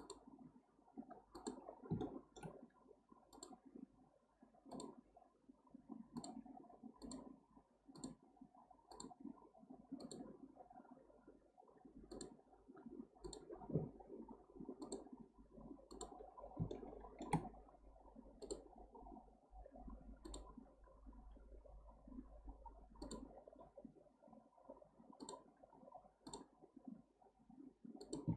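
Faint computer mouse clicks, about one a second at an uneven pace, as vertices are placed and selected while modelling in Blender, over a light rustle of the hand on the mouse.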